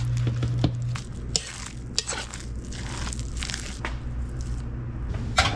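Raw shrimp scraped off a paper plate into a steel pot of cornbread stuffing and sliced mushrooms, then the mixture stirred and packed by hand into a raw turkey: soft scrapes, clicks and wet squishing over a steady low hum. There is a sharp knock near the end.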